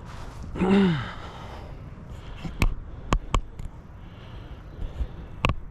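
A man's short sigh, a voiced breath falling in pitch, just under a second in, followed by a few sharp taps, spread out, over steady outdoor background hiss.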